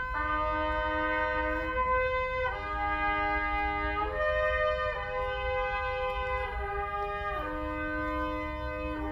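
Slow memorial music of held brass chords, with the harmony moving to a new chord every one to two seconds.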